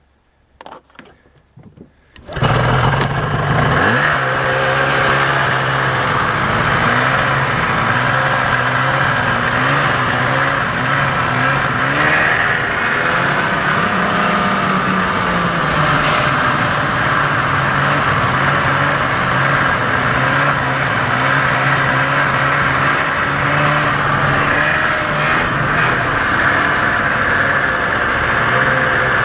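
1987 Ski-Doo Safari 377's two-stroke engine starting about two seconds in and then running steadily, its pitch wavering a little. The engine now runs on fuel after a fuel-line problem.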